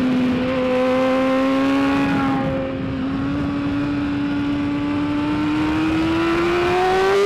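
2013 BMW S1000RR inline-four engine running hard under load on track, its pitch holding nearly steady and then climbing gradually toward the end as it pulls up through the revs.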